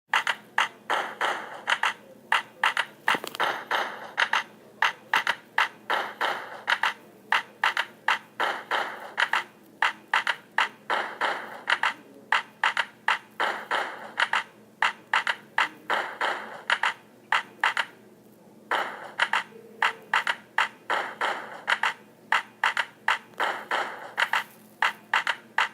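Rapid, uneven series of sharp clicks, several a second, with a short pause about three quarters of the way through.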